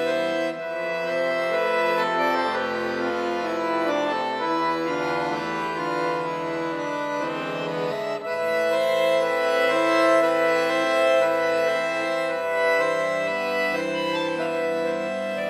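Chromatic button accordion playing a solo concert piece: dense held chords that shift every second or so, with a brief break about eight seconds in.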